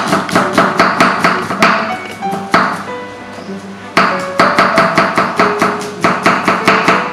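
Kitchen knife mincing garlic on a wooden chopping board: quick, even knocks about five a second, stopping for about a second and a half midway, then starting again.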